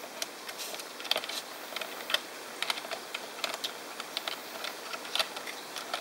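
A cockatoo's beak clicking and prying at the plastic keys of a computer keyboard, the bird trying to pull keys off: irregular sharp clicks and rattles, a few a second, the loudest about one and two seconds in and again near the end.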